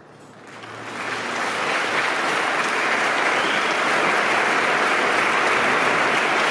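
Large audience applauding, the clapping swelling over the first couple of seconds and then holding steady and dense.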